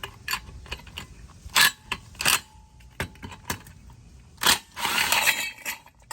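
Metal parts of a ceiling fan being handled and worked loose: a series of sharp clinks and knocks, then a short metallic rattle about five seconds in.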